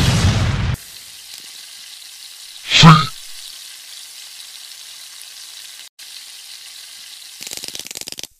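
Cartoon sound effects: a loud sound cuts off just under a second in, then a steady sizzling hiss runs on. About three seconds in comes one short, loud swoop that bends in pitch, and near the end a quick fluttering rattle.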